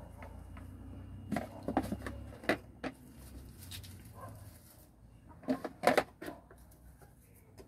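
Handling noises: a series of light knocks and clicks in two clusters, one starting just over a second in and another past five seconds.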